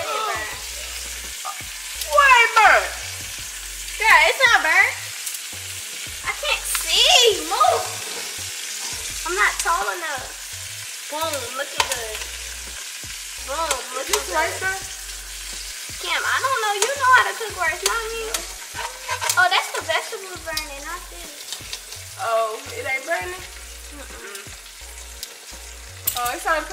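Pieces of seasoned steak frying and sizzling in a pot, turned and stirred with metal tongs, with scraping and clicks. Over it, and louder, a song with a voice singing short phrases over a steady bass line.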